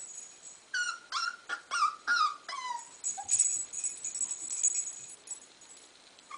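Young puppy whimpering: a quick run of about six short whines, each falling in pitch, then a thin high-pitched whine for a couple of seconds.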